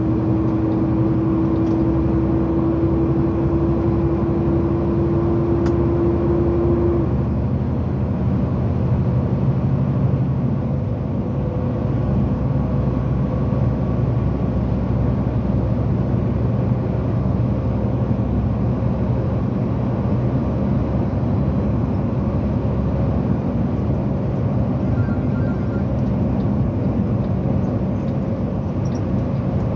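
A motor vehicle running steadily, a continuous low engine and road rumble. A steady, slightly rising tone sounds over it for about the first seven seconds, then stops.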